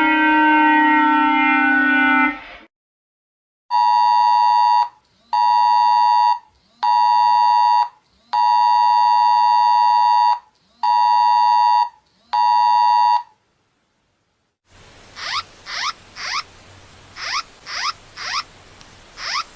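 Emergency alert tones. A held chord of several tones falls slightly and cuts off about two and a half seconds in. After a short gap, six electronic beeps of one pitched tone follow, the fourth one longer. After another gap, a hiss begins, with quick rising chirps.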